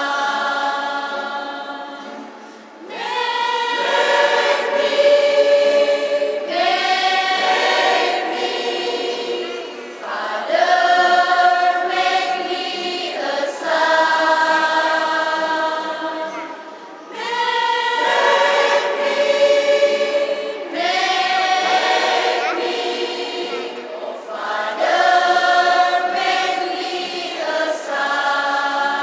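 Mixed choir of girls and adult women and men singing together in long held phrases, with short breaks between phrases about every seven seconds.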